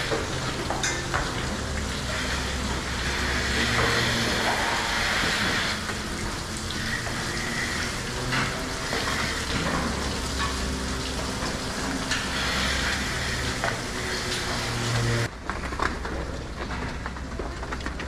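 Rotary milking shed machinery running: a steady low hum with a loud hiss over it and a few faint clicks.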